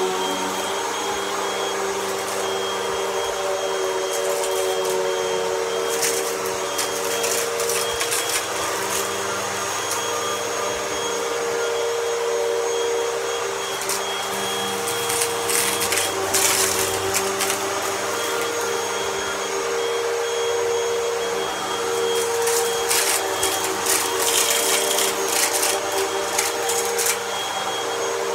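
Vacuum cleaner running with a steady motor hum, with light crunching and crackling in several spells as bits of debris are sucked up the nozzle.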